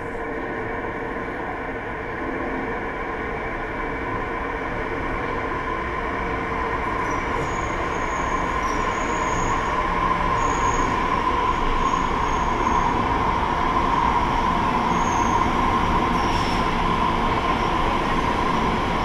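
Elizabeth line Class 345 electric train heard from inside a carriage: a steady running rumble that grows louder as the train picks up speed. A steady whine sets in partway through, and several short high wheel squeals come in the second half.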